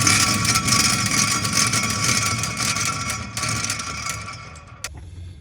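Bad wheel bearing grinding, a harsh rushing noise with a steady whine running through it, that stops abruptly near the end.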